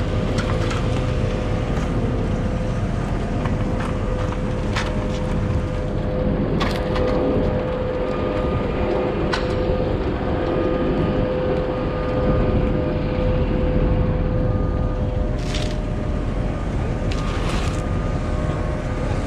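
Steady street traffic and vehicle engine noise with a constant hum, broken by a few short sharp clicks or knocks.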